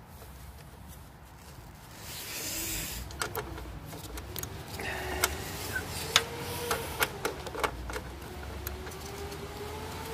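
Irregular sharp clicks and light clinks of hand tools and parts being handled during work on a snowblower, with a faint hum drifting slowly up and down in pitch underneath from about midway.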